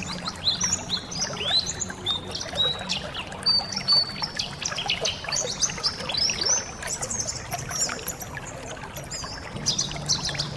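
A flock of white-eyes (pleci) twittering: many rapid, overlapping high chirps and short slurred calls, over a steady trickle of running water.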